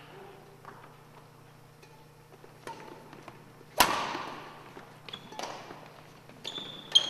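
Badminton rackets striking a shuttlecock during a rally, about six sharp hits, the loudest a little under four seconds in, each echoing in the gym hall. A short high squeak near the end, typical of a sneaker on the wooden floor.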